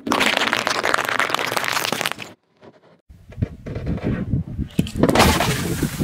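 A car tyre rolling over a pile of cherry tomatoes, crushing them in a dense run of crackling pops. After a short break, a tyre rumbles over a log onto full Coca-Cola cans. About five seconds in the cans crush and burst with a sudden loud crunch, followed by a spraying hiss.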